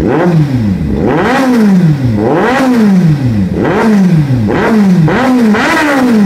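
Kawasaki Z800's inline-four engine with an aftermarket exhaust, revved repeatedly: the pitch climbs and falls back about five times, each rev lasting about a second. The sound is deep and melodic.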